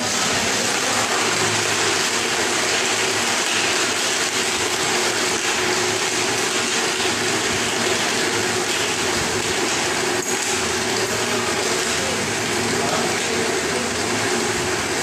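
Blender running steadily, crushing ice with frozen strawberry puree and water into a smoothie. It cuts in suddenly and holds one even, loud pitch.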